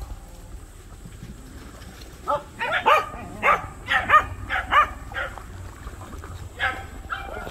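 A dog barking: a quick run of about eight short barks over roughly three seconds, then two more near the end.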